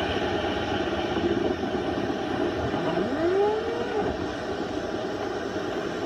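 Dryer-vent cleaning tool running steadily inside a clogged dryer vent, blowing lint and dust out of the exterior vent hood. A rising tone comes in about halfway through.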